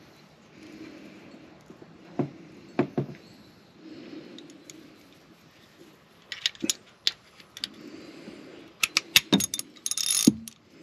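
Metal hand tools clinking and clattering: a few sharp clicks about two to three seconds in, then a quick run of clinks and rattles over the last few seconds.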